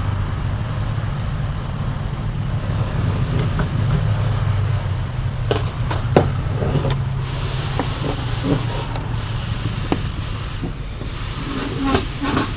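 A steady low hum, like a motor or traffic running in the background, with a few light clicks and taps about halfway through and again near the end.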